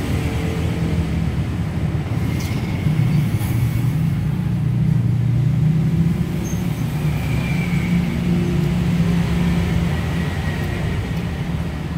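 A low, steady engine-like rumble and hum that swells a few seconds in and eases off again near the end.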